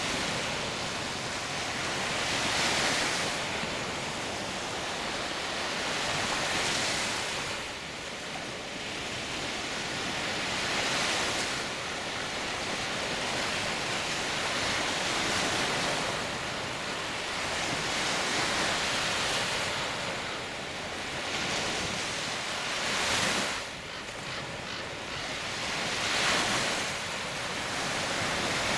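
Small Baltic Sea waves breaking and washing up a sandy beach, the surf swelling and falling back about every four seconds.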